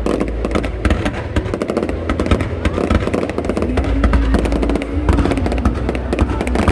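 Fireworks display: a dense run of crackling bursts over a constant low rumble, with music playing underneath.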